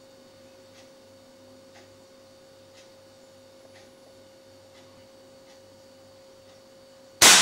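A single air rifle shot about seven seconds in: one sharp, sudden crack, the loudest thing here. Before it there is only a faint steady hum with soft ticks about once a second.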